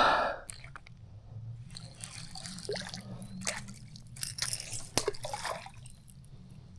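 Faint water sounds, drips and small splashes, with a few light sharp clicks scattered through and a low steady hum beneath.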